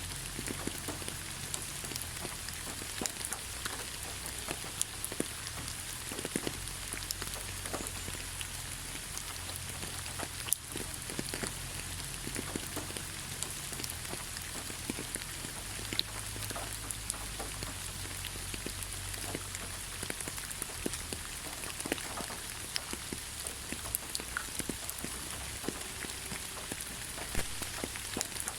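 Steady rain falling on leaves: an even hiss with many scattered, irregular drop taps, under a faint low rumble.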